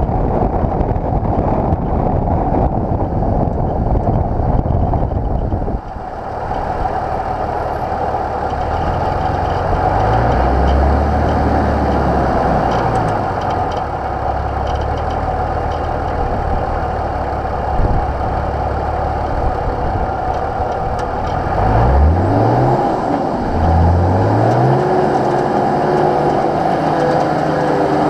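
Nissan GU Patrol's TD42 six-cylinder diesel engine driving on soft beach sand, with wind on the microphone for about the first six seconds. The revs then rise and fall, with two quick climbs near the end as it pulls up the sand track into the dunes.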